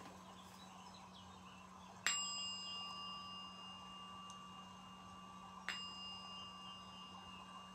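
A small bell or chime struck twice, about three and a half seconds apart, each strike ringing out clearly and fading slowly. A faint steady low hum lies underneath.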